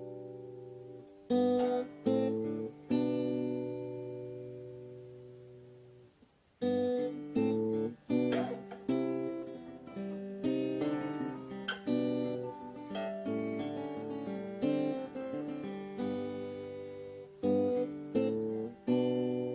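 Music of strummed acoustic guitar chords, each left to ring out. After a few chords the strumming stops and one chord fades for several seconds, then it resumes in a busier pattern.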